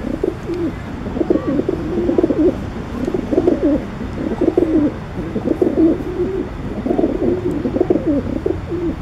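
Feral rock pigeons cooing: repeated low, warbling coos, about one phrase a second.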